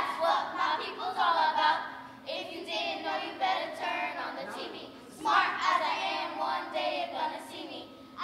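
Group of young girls chanting together in unison, half sung, in phrases with a short break about four seconds in.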